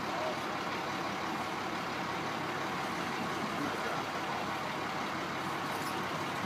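School bus engine idling steadily, heard from inside the stopped bus.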